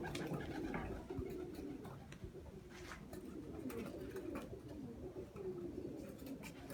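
Domestic pigeons cooing: a steady run of low, wavering coos one after another, with a few faint clicks scattered among them.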